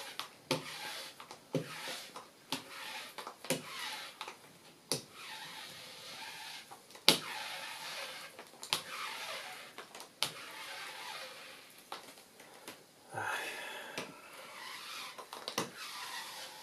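A small paint roller rolled back and forth over a paper backscene laid on wet glue, pressing it down onto a hardboard panel: a hissy scraping with sharp clicks about once a second.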